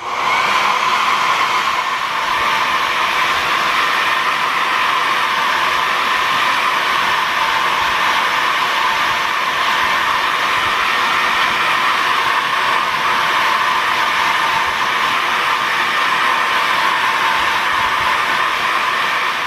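Handheld hair dryer switched on and running steadily: a loud rushing hiss with a high, even hum.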